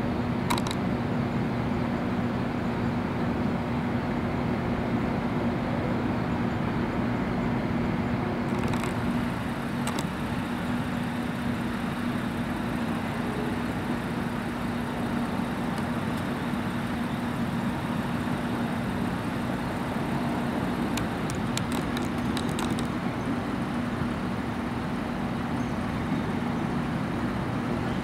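Steady background noise with a constant low hum, unchanging throughout, with a few faint ticks.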